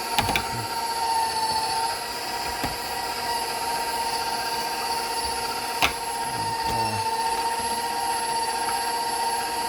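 KitchenAid stand mixer motor running steadily with the fruit and vegetable strainer attachment, a constant high whine while it presses tomatoes into sauce. There are a couple of sharp knocks, one at the very start and one about six seconds in.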